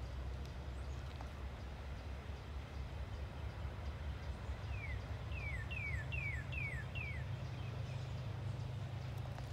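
Distant CW40-9 diesel locomotive rumbling steadily as it works in the yard. About halfway through, a bird calls a quick series of six falling notes.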